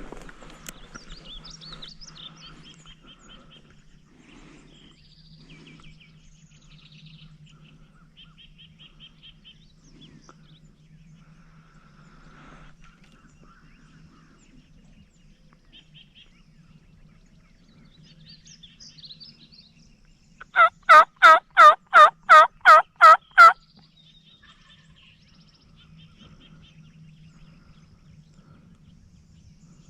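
Turkey yelping: a loud run of about nine even yelps, about three a second, about two-thirds of the way through. Faint songbird chirps go on in the background.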